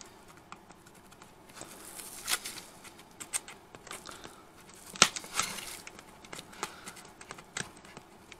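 Small pliers bending over the legs of tacker staples that have pierced a fabric-covered panel and its metal mesh. Scattered small clicks and rustling, with one sharper click about five seconds in.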